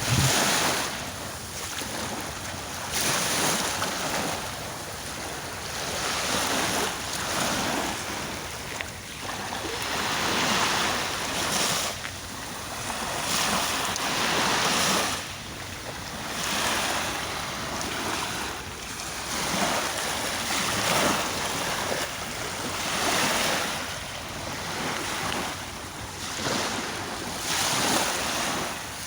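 Sea waves breaking and washing ashore, a rushing surf noise that swells and fades every few seconds.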